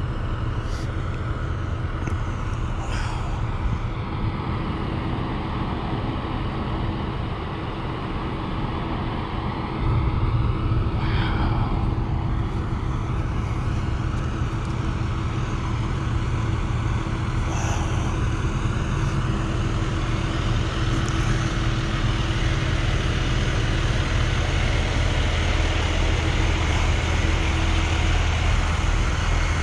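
Idling vehicle engines: a steady low rumble with a faint steady hum, which becomes louder about ten seconds in. Near the end a parked fire engine's engine is close by.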